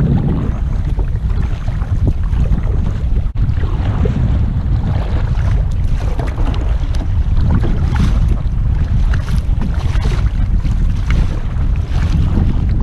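Heavy wind buffeting the microphone with a loud, steady rumble, over choppy river waves splashing and slapping around a kayak. There is a brief dropout about three seconds in.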